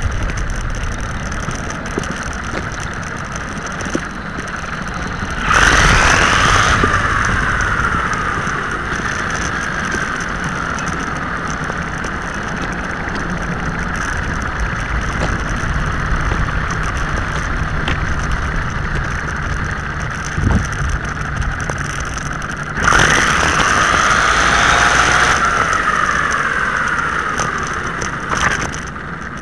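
Electric drive motor and gearbox of a WLtoys 12628 6x6 RC truck whining steadily as it drives on asphalt. The whine swells louder twice, about six seconds in and again near 23 seconds, then falls in pitch each time as the truck eases off.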